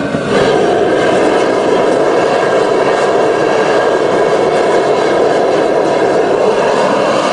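Propane heater burner running flat out: a loud, steady roar like a jet engine that steps up about a third of a second in and then holds.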